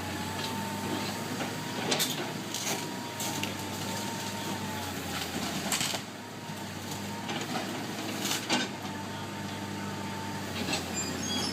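Excavator's diesel engine running steadily with a faint high whine over it, and scattered sharp knocks and clatters, about a dozen in all.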